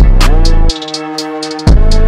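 Electronic music with a heavy bass and drum beat. About two-thirds of a second in, the bass and beat drop out, leaving a few held higher tones that rose into place, and the bass and beat come back in near the end.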